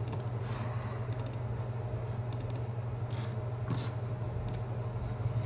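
Four short bursts of quick clicks, like computer keyboard typing, over a steady low electrical hum.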